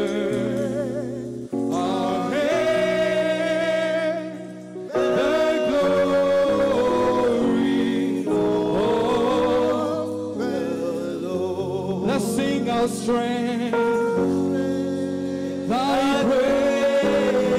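Live gospel worship music: singers' sustained, wavering vocal runs over long held chords from the accompanying band.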